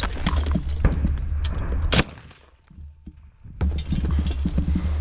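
Handling and walking noise on a body-worn camera: a steady low rumble of wind and movement with footsteps and gear clatter. There is a sharp crack about two seconds in, then it goes nearly quiet for about a second and a half before the rumble returns.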